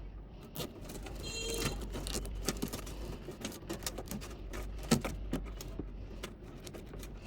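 Hands working cables and plastic ties inside a desktop computer case: a run of small clicks, taps and rattles, with a short rattling buzz about a second and a half in and a sharper knock about five seconds in.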